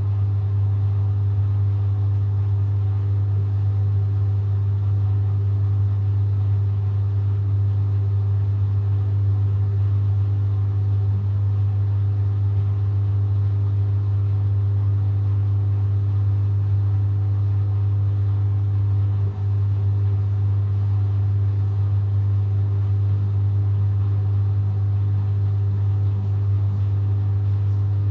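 Samsung WW70T4020EE front-loading washing machine spinning a load of clothes at a steady speed during its 1200 rpm spin cycle: a constant low hum with a few steady higher tones, dipping for a moment about 19 seconds in.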